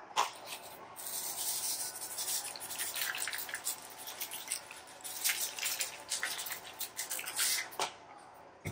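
Seasoning going onto radicchio leaves on a paper-lined metal baking sheet from a small hand-held bottle: short, irregular bursts of hiss and light ticks. A single knock comes right at the end.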